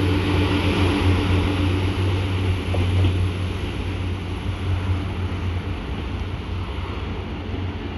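Diesel train's engine giving a steady low drone that slowly fades as it pulls away, with wind noise on the microphone.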